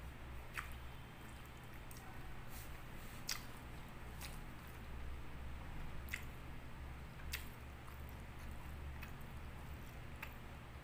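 Close-miked chewing: wet mouth clicks and smacks come irregularly, about one a second, over a faint steady low hum.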